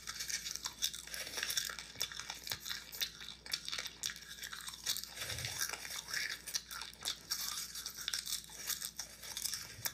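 Popcorn crunching: a close, dense run of small irregular crackles and crunches.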